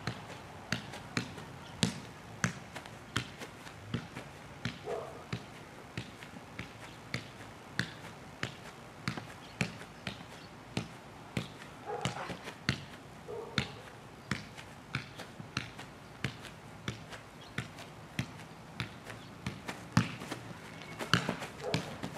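A size-one football being juggled with the feet: a steady run of short, sharp kicks, a little under two a second, becoming louder and less even near the end.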